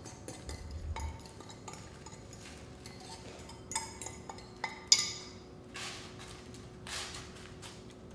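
A fork scraping and tapping against a glass bowl as buttered ginger snap crumbs are tipped out into a springform pan. The clinks and scrapes are light and scattered, with the sharpest click a little before the five-second mark.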